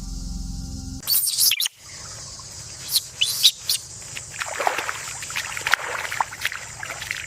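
Ambient music cuts off about a second in, followed by a loud noisy burst. After that comes an outdoor field soundscape: birds chirping in short upward-sweeping calls over a steady high insect hiss.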